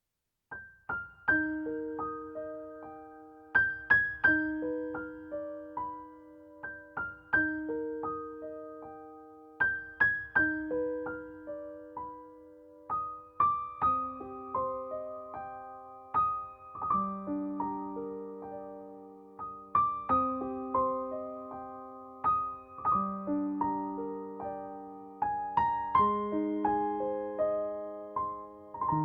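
Soft background piano music: slow, gently arpeggiated notes that ring and fade, beginning after a brief pause.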